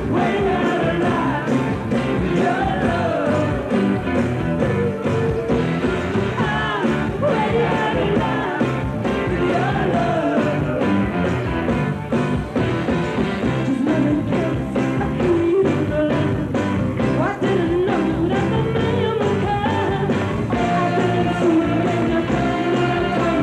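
Live rock band playing, with a woman singing lead over bass guitar and drums. The sound is dulled by an old VHS tape copy.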